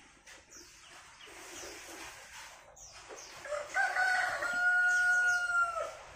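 A rooster crows once, a long held call that begins about three and a half seconds in and breaks off sharply. Small birds chirp faintly before it.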